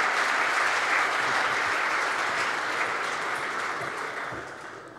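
A large audience applauding, the clapping thinning and fading away over the last second or so.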